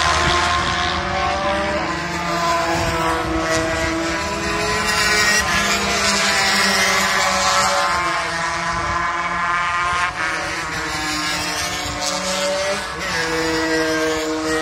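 Several 250cc two-stroke racing motorcycles at speed on the circuit, their overlapping engine notes rising and falling in pitch as the bikes accelerate and pass.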